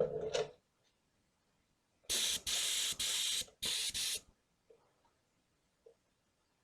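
Compressed air hissing out of a paint spray gun in four short blasts in quick succession, as the trigger is pulled and released; a brief handling noise sounds just before them at the very start.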